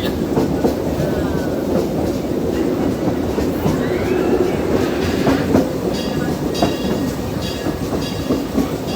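Train running along the track, its wheels clacking over the rail joints in a steady rumble, with faint higher-pitched tones from about six seconds in.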